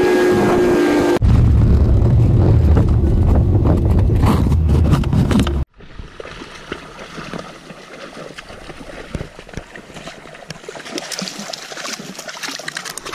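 A vehicle driving, with road hum and wind on a hood-mounted camera, then a loud low wind rumble for a few seconds. After a sudden cut the sound drops to lighter wind and water at a pond, with splashing near the end as a dog wades through the water.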